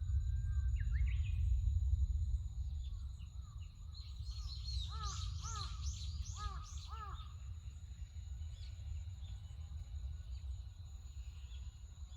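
Wild birds calling in a forest over a low steady rumble of wind. About a third of the way in comes a quick run of about five harsh, arched calls, with higher chirping from smaller birds; fainter calls follow.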